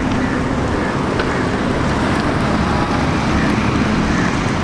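Steady street noise: wind rushing on the microphone over the rumble of road traffic.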